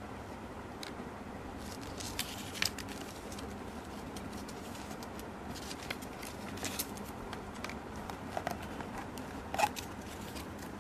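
Paper inserts and a clear plastic packaging tray being handled, with scattered crinkles and sharp clicks over a steady hiss; the loudest click comes near the end.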